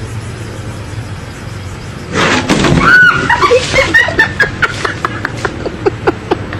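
Steady background rumble, then a sudden loud noise about two seconds in, followed by people laughing and exclaiming.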